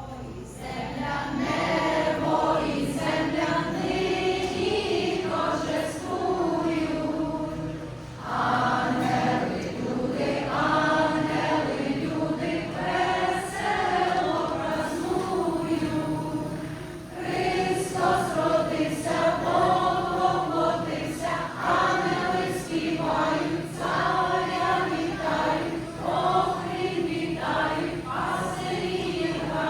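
A choir singing a Christmas carol, phrase after phrase, with short breaks in the singing about eight and seventeen seconds in.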